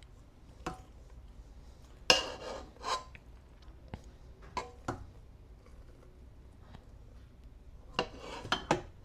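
Kitchenware clinking and scraping: a utensil knocking and scraping against a mixing bowl and cake pans in scattered short strokes. The loudest is a sharp clatter with a brief ring about two seconds in, and a quick cluster of knocks comes near the end.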